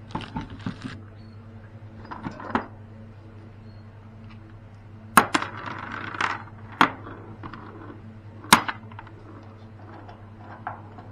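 Sharp metallic clinks and knocks of hand tools and fittings being handled, three louder strikes a second or two apart with small rattles between.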